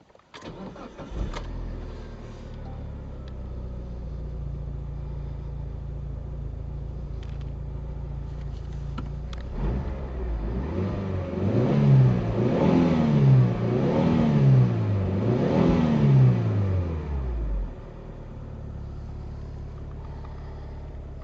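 Mitsubishi Lancer Evolution 6.5's turbocharged four-cylinder engine starting: a brief crank that catches about a second in, then a steady idle. Three rev blips follow, each climbing and dropping back, before it settles to idle again.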